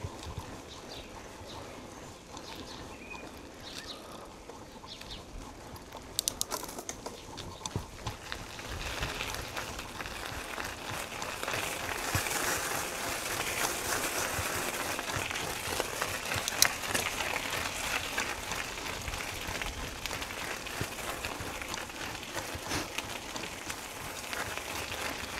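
Knobby bicycle tyres rolling over a gravel path, a steady crunching hiss that grows louder about nine seconds in, with a few sharp clicks around six seconds in and another later on.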